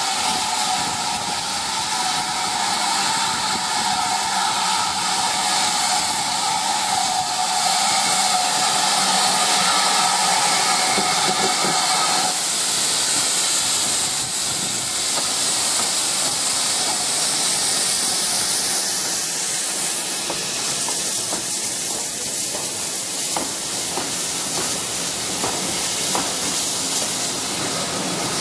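GWR Manor-class steam locomotive hissing steam, with a steady tone running through the hiss, which cuts off suddenly about twelve seconds in. The train then rolls past, with wheels clicking over the rail joints.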